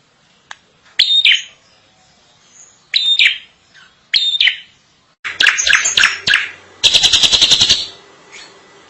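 Drongo singing. It gives three loud phrases, each a brief high note dropping into a falling sweep, then a fast jumble of sweeping notes. Near the end comes a rapid rattle of about a dozen notes a second.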